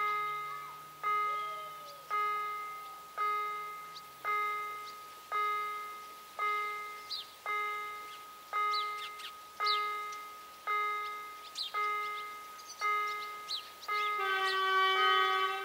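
Electronic level-crossing bell (TEL-KLD loudspeaker) sounding its warning that a train is approaching: a synthetic bell strike about once a second, each ringing and fading before the next. Birds chirp in the background, and a louder held pitched tone joins for about a second and a half near the end.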